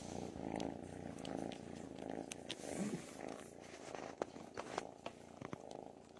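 A domestic kitten purring steadily, close up, with a few soft clicks in the second half.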